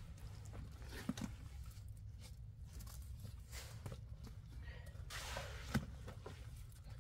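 Scattered light knocks and rustling over a low steady rumble, with a sharp click about a second in and another near six seconds.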